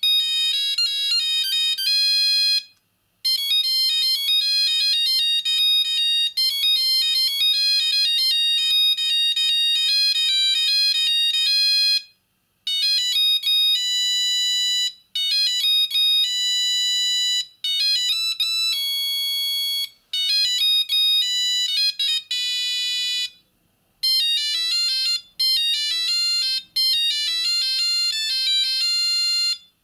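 Siemens C25 mobile phone playing a series of its monophonic ringtones, each a short beeping tune of single high notes. Brief breaks come between tunes about 3, 12 and 23 seconds in. One passage has slow held notes, and a fast warbling trill comes just before the last tune.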